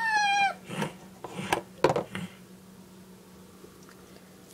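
A child's high-pitched squeal, voicing a toy horse, lasting about half a second and dropping slightly at the end. It is followed by a few light knocks of plastic toy figures on the floor, then quiet.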